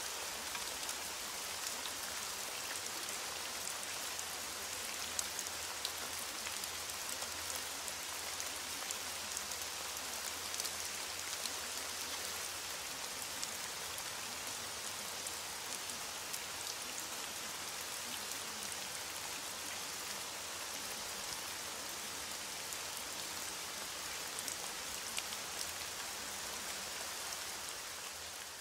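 Steady rain falling, with many scattered drops ticking through a continuous hiss. It begins to fade out near the end.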